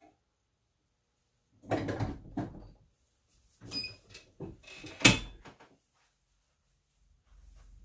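Knocks and clatter from working a small heat press, in two bursts, with a sharp clunk about five seconds in. The press's control panel gives two short beeps at about the same time as the second burst.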